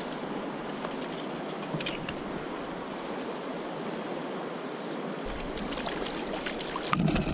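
Steady rush of river current flowing around a wading angler, with a few brief sharper sounds about two seconds in and again near the end.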